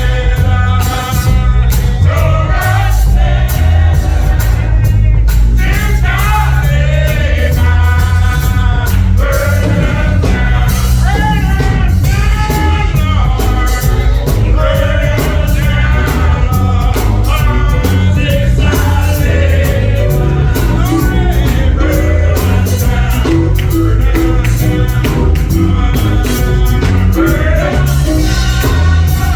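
Gospel singing with a full band: voices sing over heavy bass, drums keeping a steady beat.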